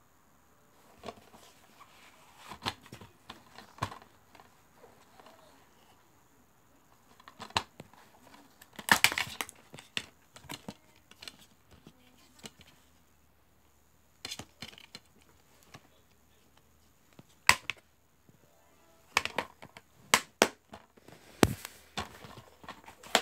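Handling of a DVD in a cardboard slipcase: the plastic case sliding and rustling, with sharp plastic clicks and knocks. It is loudest about nine seconds in and comes in a run of sharp clicks near the end.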